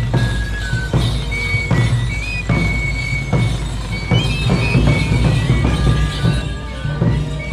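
Andean procession music: a high flute melody played over repeated strokes of large double-headed bass drums.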